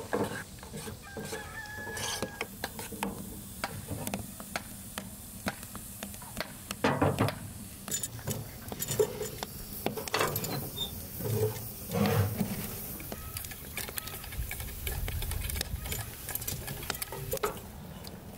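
Whisk and spoon stirring and clinking in an enamel pot, with two louder metal clanks from the wood stove's iron plate and poker around the middle. Chickens cluck in the background.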